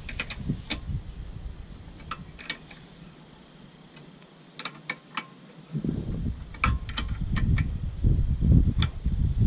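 Sharp metallic clicks and clinks of bolts, lock washers and a hand tool being worked on the back plate of a longtail engine's clutch assembly, scattered irregularly. A low rumble comes in about six seconds in.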